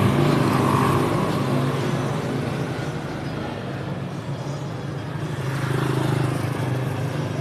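Road traffic: a car driving past close by, loudest in the first second, then the hum of passing cars and motorcycles, swelling again around six seconds in.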